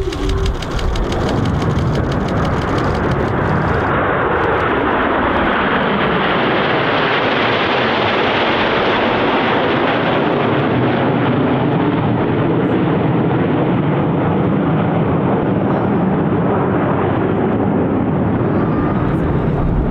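Jet noise of nine BAE Hawk T1 jet trainers and a CF-18 Hornet fighter passing overhead together in formation. It is a steady rushing roar that grows brighter toward the middle as the formation passes, then dulls a little as it moves away.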